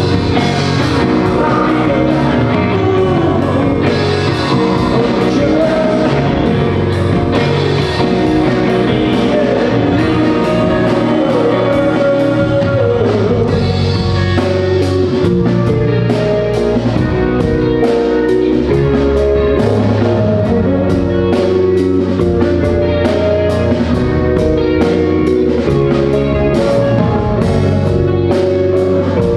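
Rock band playing live through the stage system: electric guitar, bass and drum kit with a steady beat, and a voice singing over them.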